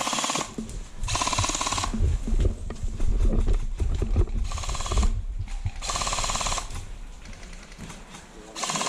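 Airsoft guns firing short full-auto bursts, five in all, each about half a second of rapid clicking, with low rumbling knocks on the microphone in between.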